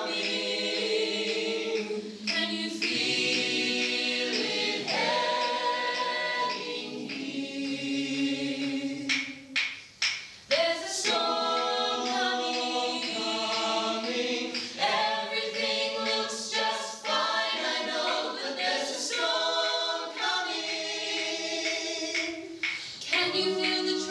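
A group of voices singing together in harmony, unaccompanied, with long held notes and a brief break about ten seconds in.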